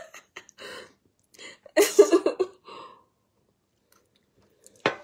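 A man's mouth and voice close to the phone microphone: small clicks at the start, a short voiced sound about two seconds in, then a sharp short burst of breath near the end, with silence in between.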